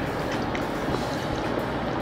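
A fork dipping into ranch dressing in a small glass cup, a few faint clicks and wet sounds over a steady background hiss.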